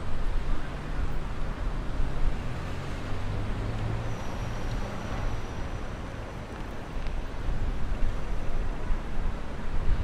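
City street traffic: a steady wash of vehicle engine and tyre noise with a low rumble, and a thin high steady whine from about four seconds in until about nine seconds.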